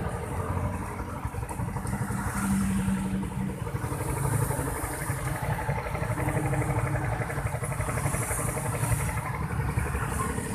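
Suzuki motorcycle engine running steadily while the bike is ridden at about 45–50 km/h, its crankcase oil drained, with a steady hiss of wind and road noise.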